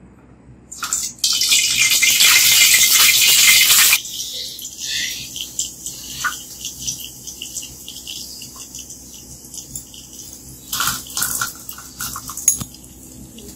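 Chopped aromatics dropped into hot oil in an aluminium wok: a loud sizzle for about three seconds, settling into quieter frying with small crackles and spits. A second short burst of sizzling comes near the end, as more is poured in over the chicken wings.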